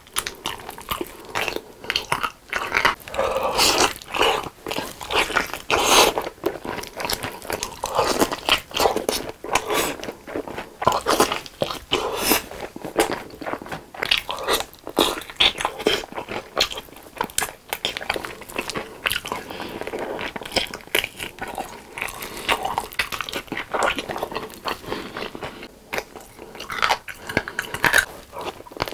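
Close-miked biting and chewing of sauce-glazed fried chicken drumsticks. Crisp crunches of the coating come again and again, mixed with wet chewing, all the way through.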